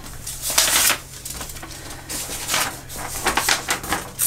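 A paper packing list being unfolded and handled, rustling and crinkling in several uneven bursts.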